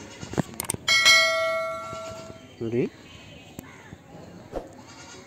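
YouTube subscribe-button overlay sound effect: a couple of mouse clicks, then a bright notification-bell ding about a second in that rings out and fades over about a second and a half.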